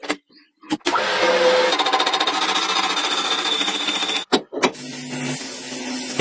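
Metalworking machinery running: a fast rattling chatter with a steady whine, split into separate stretches by two short silences.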